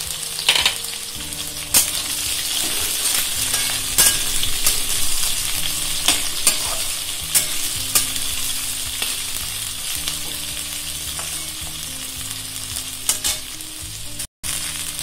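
Sliced onions frying in hot oil in a metal kadai: a steady sizzle, with the metal spatula scraping and knocking against the pan now and then as they are stirred. The sound cuts out for a moment near the end.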